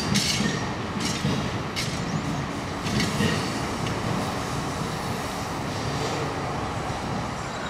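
Amtrak Superliner passenger cars rolling past on the main line: a steady rumble of wheels on rail, with brief high-pitched wheel squeaks now and then in the first few seconds.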